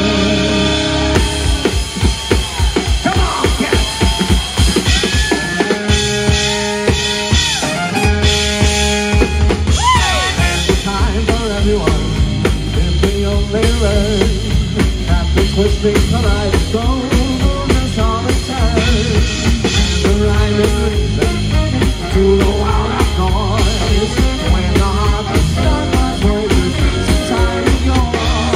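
Live band playing an instrumental passage with the drum kit to the fore: steady snare, bass drum and rimshot hits. A held, wavering note ends about a second in, and other instruments hold long notes near the middle.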